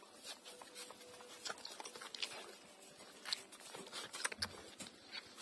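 Puppies suckling at their mother: faint, irregular small smacks and clicks.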